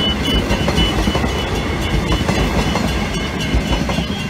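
Transperth A-series electric train passing at close range: a heavy rumble with wheels clacking over rail joints. A level-crossing warning bell beeps rapidly in the first second or so, then fades under the train.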